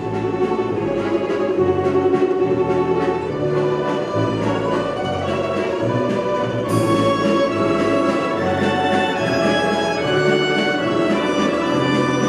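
Orchestral music with bowed strings and a bass line moving from note to note, growing brighter a little past halfway.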